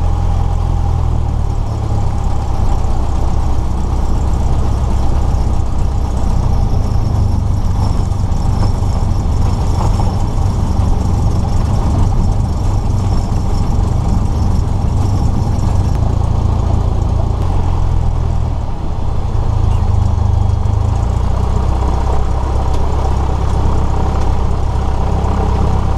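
Cessna 172S Skyhawk's four-cylinder Lycoming engine and propeller running at low taxi power, heard from inside the cabin. It is a steady drone whose low end shifts a few times.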